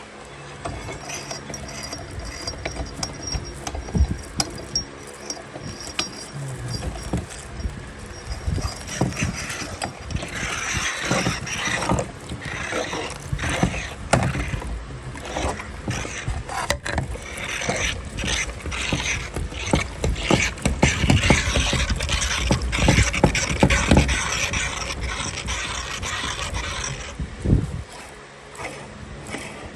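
Meat grinder working grapes through its mechanism, with continual clicks and knocks. The noise grows denser and louder from about ten seconds in and drops away shortly before the end.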